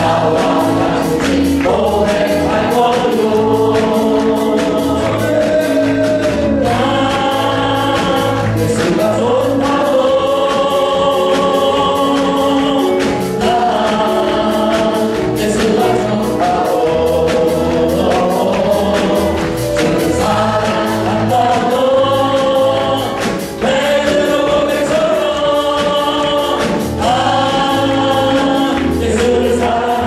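Live Korean gospel praise song: a male worship leader sings into a microphone over many voices singing together, with band accompaniment keeping a steady beat.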